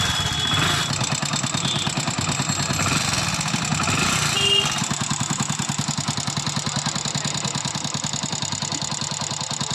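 Hero Splendor motorcycle's single-cylinder four-stroke engine idling with a rattling "khachar-pachar" clatter from loose tappets: the valve clearance is far too wide.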